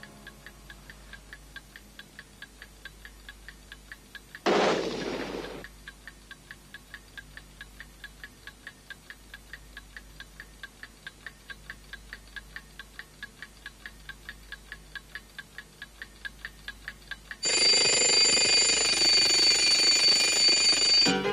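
Clock ticking steadily, with a loud burst of noise lasting about a second about four seconds in; near the end, an alarm clock bell starts ringing loudly.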